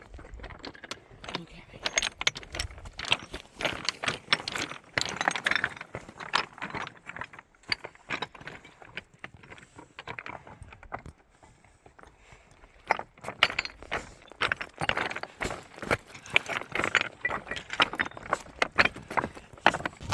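Irregular clinking and rattling, many small sharp clicks at no steady beat. They run busy, thin out through the middle, then turn busy again for the last several seconds.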